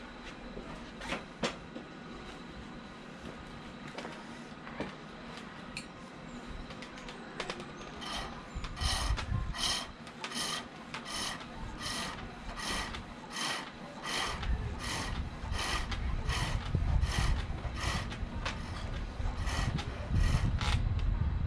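Green silver birch being turned on a foot-powered pole lathe. After a few scattered knocks, the turning tool cuts in rhythm with the treadle at about two cuts a second, and from about halfway a low thud of the treadle joins each stroke.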